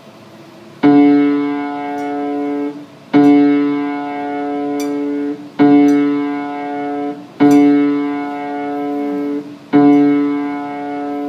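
A single low piano note struck five times, each held for about two seconds and then cut off sharply as the key is released. It is played over and over so that its pitch can be measured in cents.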